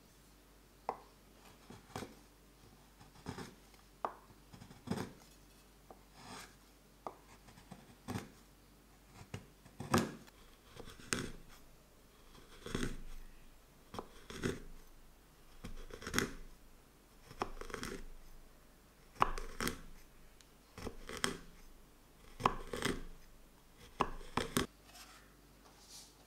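Chef's knife chopping a slab of dark chocolate on a wooden cutting board, in sharp, uneven strokes about once a second.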